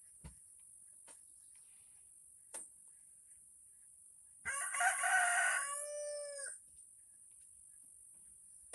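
A rooster crowing once, a call of about two seconds midway through, rough at first and then a clear tone that drops in pitch at the end.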